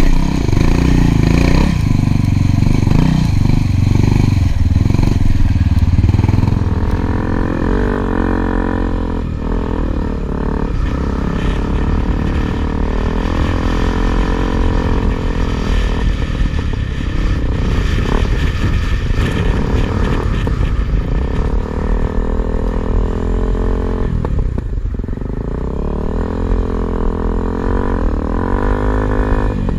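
Single-cylinder four-stroke trail motorcycle engine running under load through soft sand, its pitch rising and falling with the throttle, with a brief let-off about three-quarters of the way through. Heavy wind buffeting on the microphone for the first several seconds.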